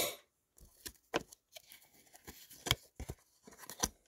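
Trading cards being handled, one card at a time slid off a stack and flipped over: a string of irregular short, sharp clicks and snaps of card stock.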